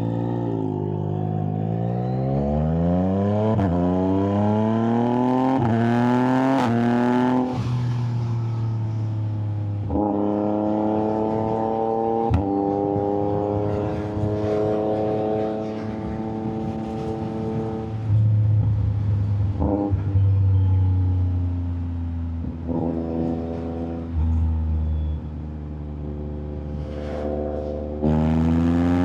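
Yamaha MT-09 inline three-cylinder engine under hard acceleration, heard from the rider. Its pitch climbs and drops back with each upshift, about three times in the first eight seconds. It then settles into a steady cruise that slowly falls, steps down lower, and climbs again near the end as the bike pulls away.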